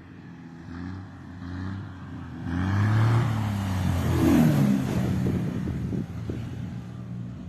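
Aircraft engine running close by, growing louder about two and a half seconds in, with its pitch bending and falling as it passes.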